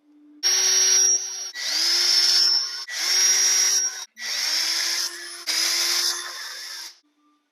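Handheld power tool motor whining in five short bursts, each spinning up to speed, as bolts are run out during an engine teardown.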